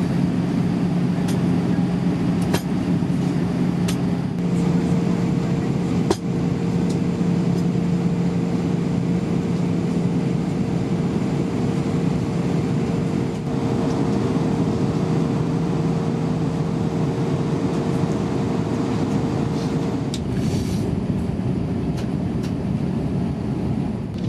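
Steady cabin noise of an Airbus A320 in descent: airflow rush and engine hum with a constant low drone. A second, higher steady tone sets in about four seconds in and drops out a few seconds before the end, with a few faint clicks near the start.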